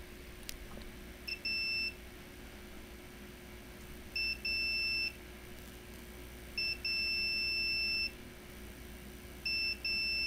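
Digital multimeter in continuity mode beeping as its probes touch both ends of a laptop fuse. Four times, a short chirp is followed at once by a longer steady high beep, about every two and a half seconds. The beep shows that current passes through the fuse, so the fuse is not blown.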